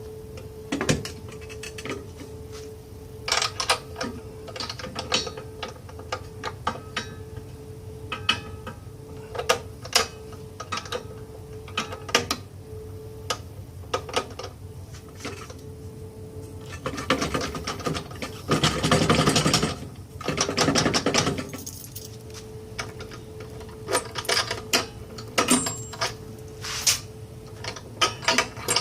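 Steel hand truck clanking and rattling against a homemade angle-iron bumper mount as it is hung on the bracket and locked down: scattered sharp metal knocks and clicks, with a few seconds of loud continuous scraping noise past the middle, over a faint steady hum.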